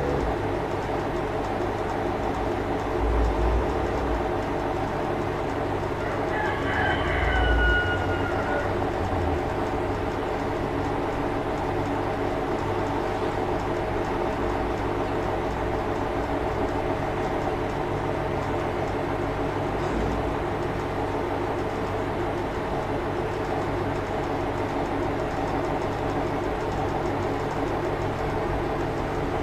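A steady machine-like hum throughout, with a short high call falling in pitch about seven seconds in.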